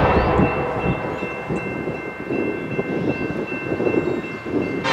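Low, uneven rumble of an approaching Norfolk Southern freight train, with the steady high ringing of grade-crossing bells, in the gap between two blasts of the locomotive's horn.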